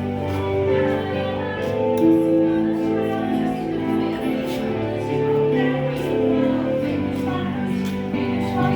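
Background music with sustained, layered notes.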